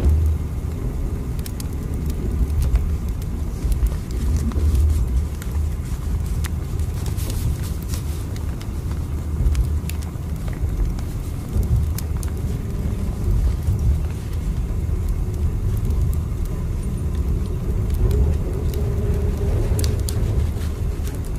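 Train running: a steady deep rumble with scattered light clicks and ticks over it.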